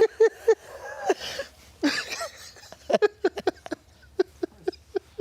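Adults laughing helplessly: squeaky, breathless laughs and gasps, turning into a quick run of short laughs, about four a second, in the second half.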